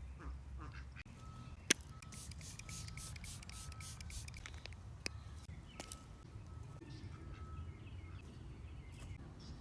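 Outdoor ambience with a bird repeating a short, steady high note and a scatter of sharp clicks and rustles over a low rumble. One loud click comes about two seconds in.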